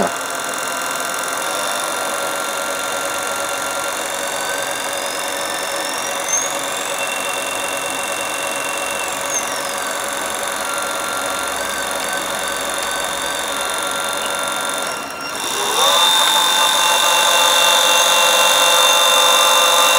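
PWM-driven DC motor whining at the switching frequency of its IGBT drive, the pitch swept up, held, brought back down and made to waver: the motor made to sing by varying the PWM frequency. About fifteen seconds in the whine drops out briefly, then comes back louder at a new steady pitch.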